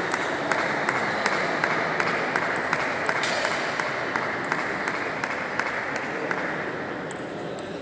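Table tennis ball clicking in a steady rally rhythm, about two to three hits a second, over the murmur of a crowded sports hall.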